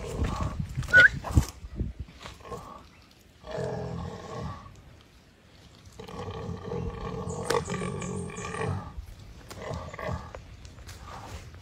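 Wild boar crying out in distress as a Komodo dragon bites and pins it: two long, low moaning calls, a short one about three and a half seconds in and a longer one from about six to nine seconds. Scuffling and knocking in wet mud comes at the start.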